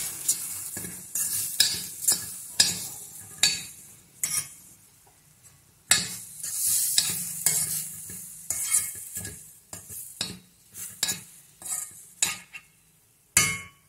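Metal spoon stirring and scraping thick rava upma around a hot stainless steel kadai, with irregular clinks and scrapes of metal on metal and some sizzling. One louder knock near the end.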